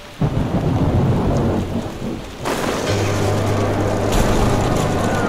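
Thunder rumbling low, then heavy rain coming on suddenly about two and a half seconds in. A steady low hum joins shortly after.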